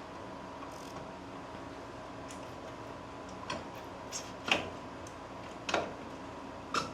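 A handful of sharp, irregularly spaced clicks and taps, from tools and parts being handled while the rear wheel axle is fitted on a motorcycle, starting about halfway in, over a faint steady hum.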